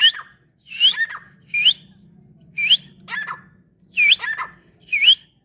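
Female francolin calling: a series of short, sharp whistled notes, each sweeping upward in pitch, repeated about one to two times a second.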